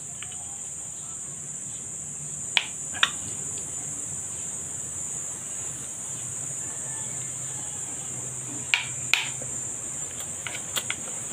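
Metal spoon clinking against a bowl of rice a few times, in short sharp clicks: two about a third of the way in, two more near nine seconds in and a few near the end, over a steady high-pitched background buzz.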